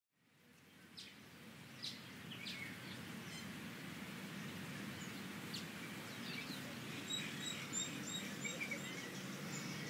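Outdoor ambience fading in from silence: a faint, steady low rumble with scattered bird chirps and a run of short, repeated high bird notes near the end.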